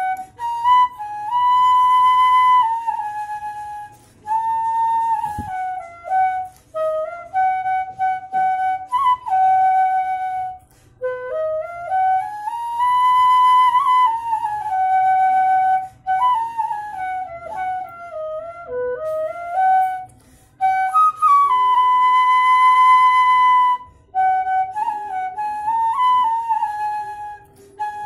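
Bamboo bansuri pitched in B playing a bhajan melody solo: one line of long held notes joined by slides and small ornaments, with short breaks for breath every few seconds and a breathy edge to the tone.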